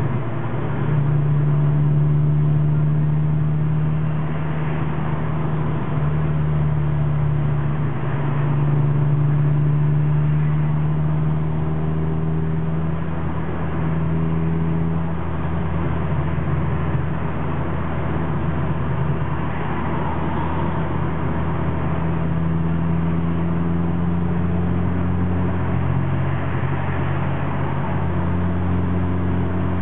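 A Honda's engine and tyre and road noise heard inside the cabin while cruising on a fast road: a steady low engine drone whose pitch shifts up and down a few times as the driver changes throttle.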